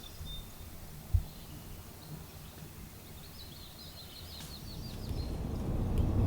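Outdoor ambience with a songbird giving a rapid trill of short chirps about three seconds in. A single low thump comes about a second in, and a low rumble builds up from about five seconds in.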